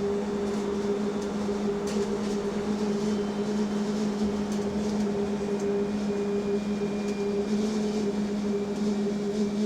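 Inside an electric bus while it drives: a steady low hum holds an even pitch over the road and running noise, with a few faint ticks and rattles.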